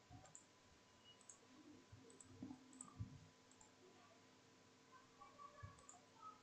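Near silence broken by a few faint, scattered computer-mouse clicks.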